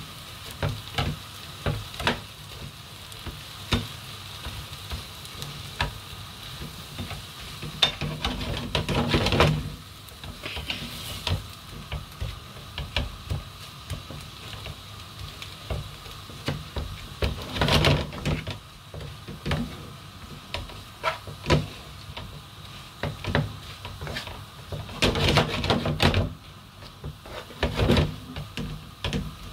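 Prawns and leafy greens sizzling in a frying pan, with a spatula stirring and scraping against the pan. The scraping comes in three louder bouts: about a third of the way in, around the middle and near the end.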